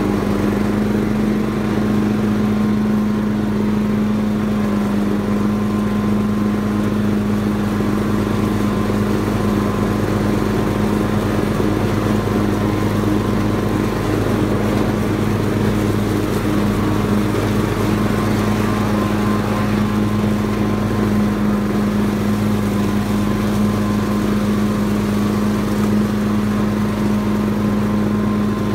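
Ride-on lawn tractor engine running at a steady speed while mowing, a loud, unchanging drone.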